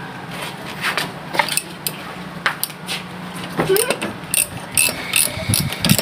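Hand ratchet and socket on the flywheel nut of a small gasoline generator engine, refitting the nut: a few scattered metal clicks at first, then steady ratchet clicking from about four seconds in as the nut is run back on.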